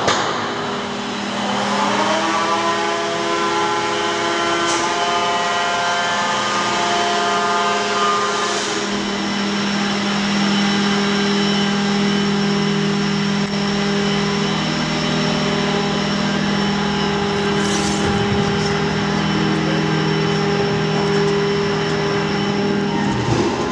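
The Nike Hercules missile launcher elevator's drive running as the elevator lifts: a steady mechanical hum and whine. Its tones rise in pitch over the first couple of seconds, hold steady, then drop away just before the end.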